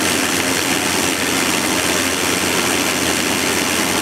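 Steady, loud rushing of strong wind on the microphone, even and unbroken.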